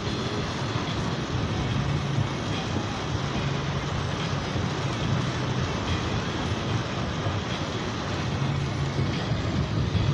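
Heavy rain falling on a van's body and windows, a steady hiss, heard from inside the van over the low drone of the van driving, which swells and eases every few seconds.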